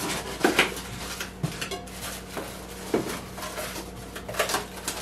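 Cardboard packing and plastic wrapping being handled as a wrapped stainless steamer insert is lifted from a cookware box: scattered rustles and a few light knocks.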